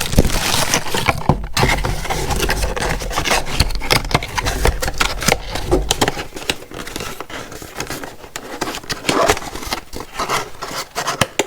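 Cardboard box and plastic packaging being handled, with rustling, scraping and crinkling and small knocks as a tool is taken out. The handling is busiest in the first half and lighter after.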